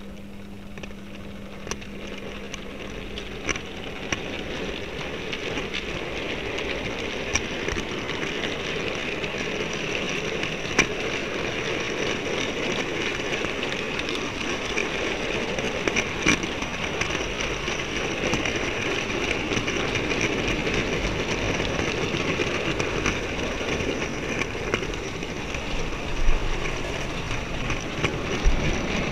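Model railway wagon rolling along the track, heard from a camera riding in it: a steady rushing rumble of wheels on rails with scattered sharp clicks, slowly growing louder.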